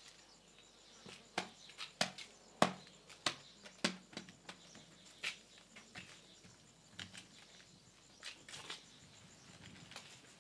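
Footsteps on a stone platform and light knocks as a heavy suitcase is handled and set down on a wooden bench. Several sharp steps come close together in the first few seconds, followed by a few scattered knocks.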